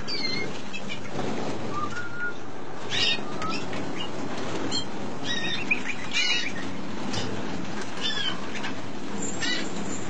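A roomful of canaries chirping: short, high calls and brief gliding notes every second or so over steady background noise.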